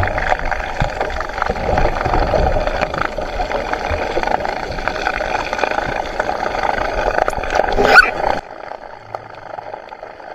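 Muffled underwater water noise with gurgling, heard through a submerged camera. It swells into a loud rush just before 8 seconds, then drops suddenly to a much quieter hiss.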